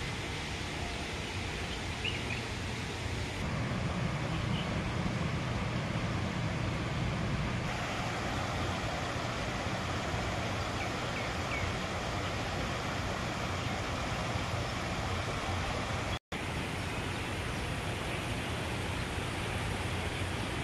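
Steady outdoor background noise, an even rushing hiss with no distinct events, which cuts out for a split second about sixteen seconds in.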